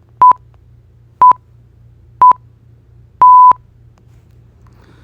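Countdown-style electronic beeps from a sound-effect preview: short beeps at one steady pitch about once a second, then a final, longer beep.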